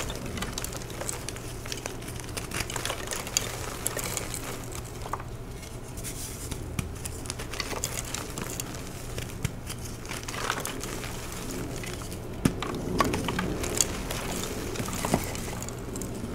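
Blue chalk blocks topped with glitter being crushed and crumbled by hand: continuous soft crunching and crackling of breaking chalk and sifting powder, with a few sharper cracks about three quarters of the way in.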